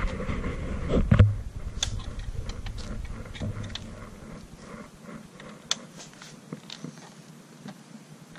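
Hands working on a motorcycle's seat and tail-section fasteners: rustling and low thumps peaking about a second in, then scattered small sharp clicks of plastic and metal parts.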